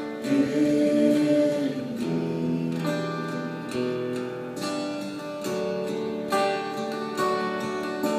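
Acoustic guitar strummed, its chords changing about every second: an instrumental passage of a worship song, with no singing.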